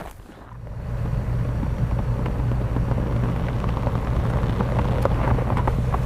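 Off-road vehicle's engine running steadily under throttle, a low drone that builds up over the first second and then holds.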